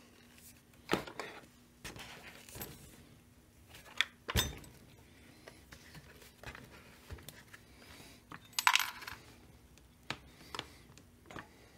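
Handling noise from a Holzfforma G388 chainsaw on a workbench: scattered light clicks, taps and knocks as a hand grips and moves over the saw's front handlebar. The sharpest knock comes about four seconds in, and a brief scraping rustle near nine seconds.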